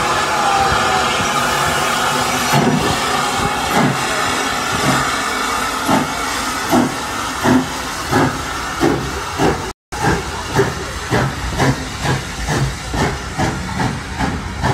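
Steam locomotive starting away: steam hissing, then exhaust chuffs that begin about one a second and quicken steadily as the train picks up speed.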